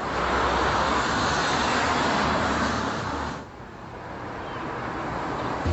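A car driving past close by, its tyre and engine noise cutting off suddenly about three and a half seconds in, followed by quieter street traffic noise.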